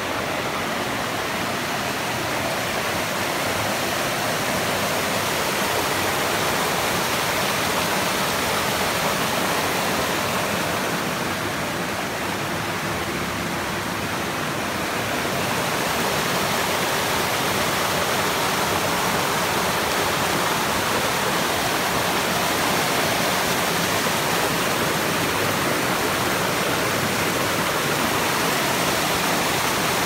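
Water rushing and churning in a steady stream through a narrow brick-walled channel, briefly a little softer about halfway through.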